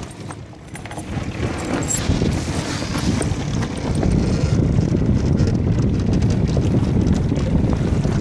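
Wind rumbling on the microphone over water washing along the hull of a small sailboat under way; it grows louder about four seconds in.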